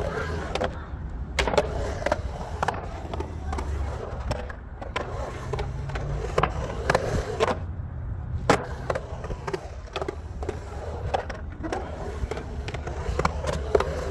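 Skateboard wheels rolling and carving on the concrete of a skatepark bowl, a steady low rumble, broken by sharp clacks of the board several times; the loudest clack comes about eight and a half seconds in.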